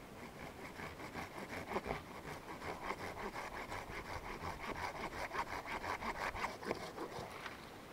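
Hand saw cutting through a thin standing sapling near its base, in quick, even back-and-forth rasping strokes.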